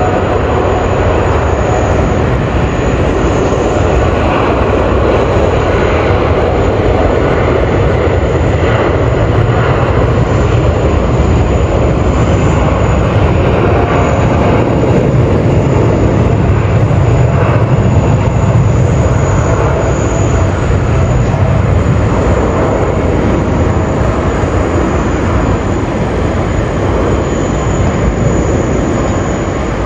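Boeing 787-9 airliner's jet engines at takeoff power, a loud steady roar that swells a little midway and eases slightly near the end.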